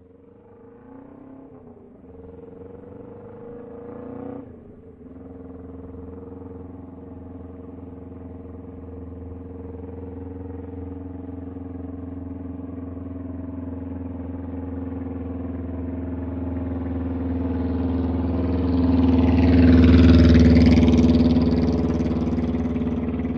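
Motorcycle engine running at a fairly steady pitch, with a brief drop about four seconds in, then growing steadily louder to its loudest near the end before easing off.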